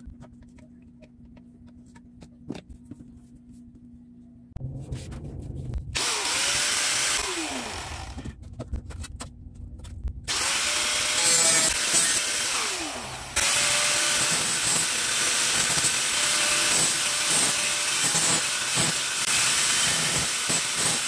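Angle grinder cutting into the rim of a rice cooker's outer body, in two passes. A short burst comes about six seconds in. A longer run starts about ten seconds in and lasts to the end, with the motor's pitch dropping as the disc bites. Before that there are only a few faint handling clicks.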